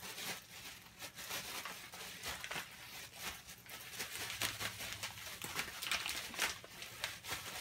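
Plastic bag rustling and crinkling as fish pieces are worked in breading mix inside it, along with the crackle of a fish-fry mix packet being handled.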